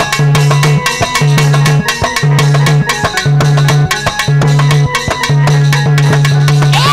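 Instrumental break of Indian folk dance music: a fast hand-drum beat with an electronic keyboard pulsing a repeated low note about once a second. Singing comes back in at the very end.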